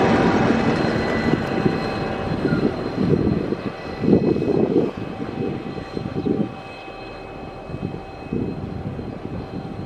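SSR G-class diesel locomotive G514, trailing at the rear of a loaded container freight train, running away: a steady engine drone with high whining tones that fades as it recedes, with louder rumbles about four and six seconds in.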